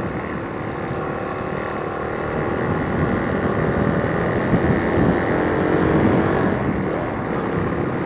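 Motorcycle engine running while riding, with road and wind rumble, picked up by a helmet-mounted external mic. The engine note rises and falls a little around the middle.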